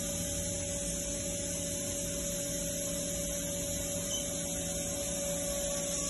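Steady hum and hiss of a powered-up but idle CNC vertical machining center, with a constant mid-pitched tone; the spindle is not turning.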